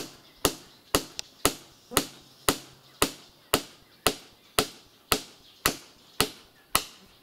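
Hammer driving a nail into a wooden beam: a steady run of blows, about two a second.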